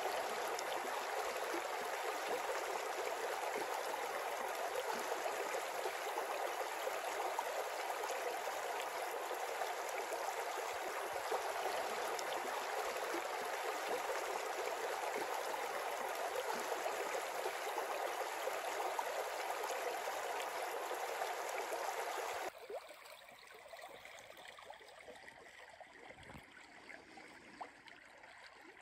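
Shallow river running over a stony bed: a steady rush of water. Near the end it drops suddenly to a much quieter, gentler flow.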